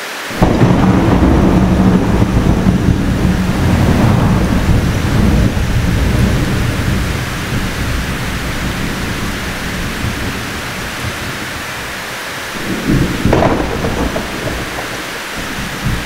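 Thunderstorm: heavy rain falling steadily, with a loud roll of thunder breaking in just after the start and rumbling away over several seconds. A second, shorter crack of thunder comes about thirteen seconds in.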